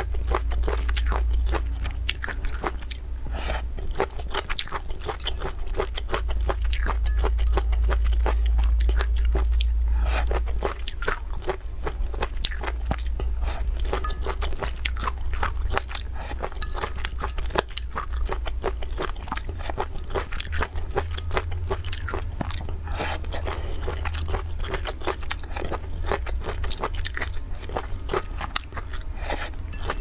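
Close-miked chewing and crunching of food, a dense run of small crisp clicks and crunches with no pauses, over a steady low hum.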